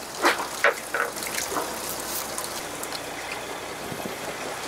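Sea water sloshing and lapping against the side of the boat as a steady wash. A few short rustles and knocks from handling gear come in the first second and a half.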